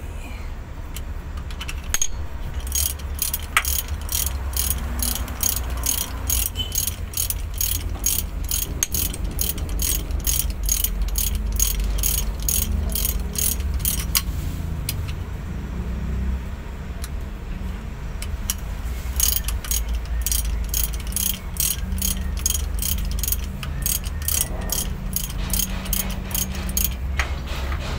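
A hand ratchet wrench clicking in quick, even runs as bolts are turned on the output housing of a ZF truck transmission. The clicking pauses for a few seconds in the middle, over a steady low hum.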